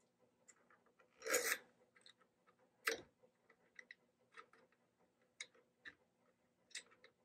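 Light metallic clicks, ticks and small scrapes of screws and a small hand tool being handled while fitting a CNC router's Z-axis mount. A louder rustle comes about a second in and a sharp click a little before halfway.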